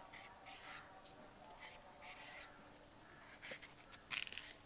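A knife scraping and cutting vegetables: a series of short, scratchy strokes, the loudest and longest about four seconds in.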